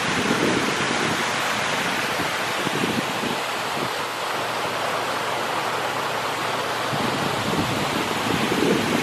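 Steady rush of flowing water in a shallow stream channel, an even, unbroken hiss.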